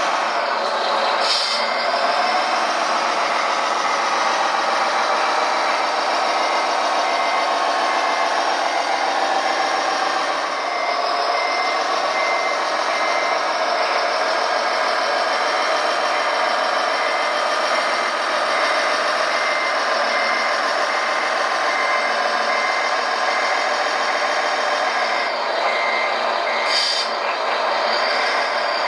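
Radio-controlled model construction trucks running, with the steady whir of their electric drive motors and gears. A reversing beeper starts sounding about a third of the way in and repeats about once a second, and there are short hisses near the start and near the end.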